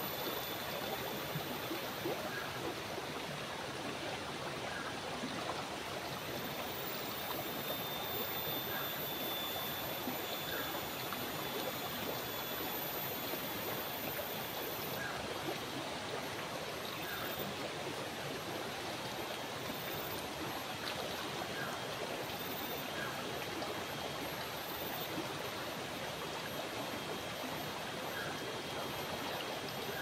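Shallow river stream flowing steadily over rocks, a continuous, even rush of moving water.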